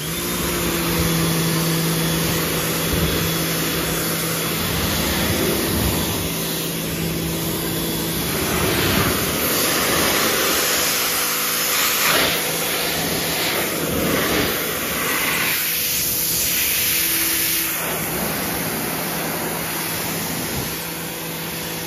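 Kärcher K1900PS electric pressure washer switching on and then running, its motor giving a steady hum under the hiss of the water jet spraying a car's bumper and hood.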